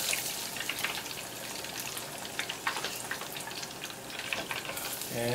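Hot canola oil sizzling in a small electric deep fryer, with a steady crackle of many small pops, as fried squirrel pieces are lifted out with tongs.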